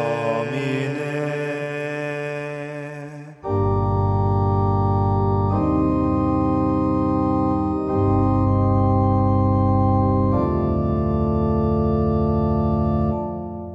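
Voices hold a sung chord in Renaissance motet style for about three seconds. Then an organ plays a slow series of sustained chords with a deep bass, changing every two or three seconds and fading away near the end.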